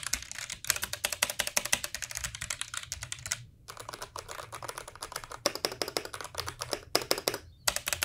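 Fast typing on a Roccat Vulcan Mini mechanical keyboard: a rapid run of key clicks that breaks off briefly twice, about three and a half seconds in and again near the end.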